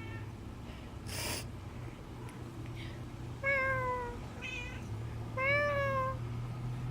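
Domestic cat meowing three times: a slightly falling meow, a short one, then a longer meow that rises and falls. A short burst of noise comes about a second in.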